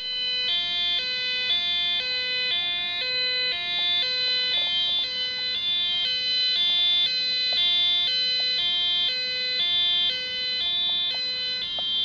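Two-tone siren from a small loudspeaker driven by a breadboard circuit of two 555 timer ICs: a buzzy tone stepping back and forth between two pitches several times a second.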